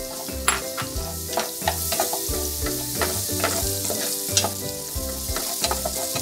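Butter and chopped garlic sizzling in hot oil in a nonstick pan as a spatula stirs them, with frequent light clicks and scrapes of the spatula against the pan. Low steady tones run underneath.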